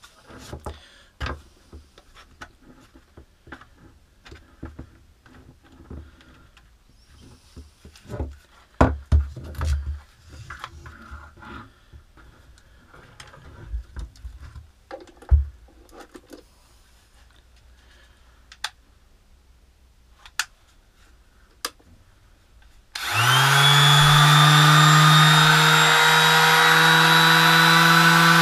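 Plastic clicks, knocks and rattles as the Mac Allister MSDLS160 160 W electric detail sander and its dust attachment and cord are handled. About 23 seconds in the sander is switched on, spins up within half a second and runs at a steady speed with an even motor whine.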